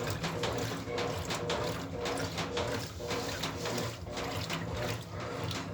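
Brastemp Ative 9 kg washing machine in its wash cycle: water splashing and running in the tub over a steady hum.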